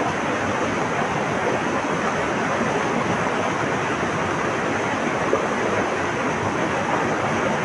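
Flowing water rushing steadily, an even, unbroken noise.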